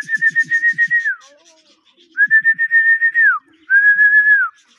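A person's whistling: three long, steady whistles, each about a second and dropping in pitch as it ends, a pigeon fancier's call to bring a returning racing pigeon down into the loft.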